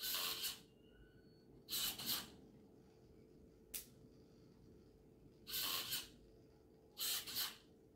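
Small electric drive motors of a phone-controlled robot car whirring in short spurts, five of them about half a second each, as it is driven in brief moves. A faint steady hum runs underneath.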